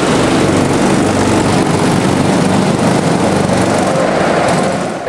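Engines of several go-karts running together as the pack pulls away from the start grid and drives off around the track.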